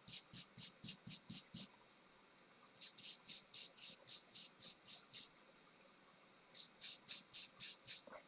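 X-Acto hobby knife blade being sharpened: quick back-and-forth strokes, about five a second, in three runs with short pauses between them.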